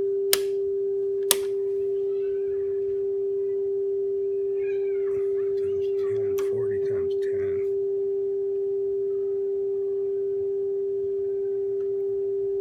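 Steady pure 400 Hz tone from an audio test oscillator set to 400 Hz, holding one pitch throughout. Two sharp clicks come in the first second or so.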